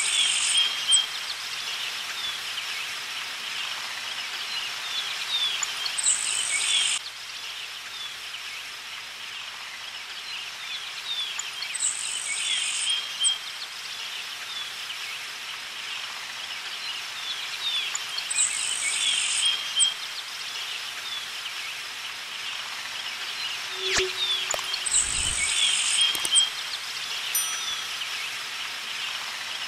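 Nature ambience of birds chirping and insects trilling. A bright high trill recurs about every six seconds, so the track sounds looped.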